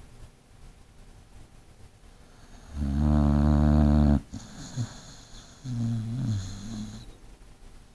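Snoring: one loud snore lasting just over a second about three seconds in, followed by a softer breath with a wavering pitch and a thin high whistle that fades out near the seven-second mark.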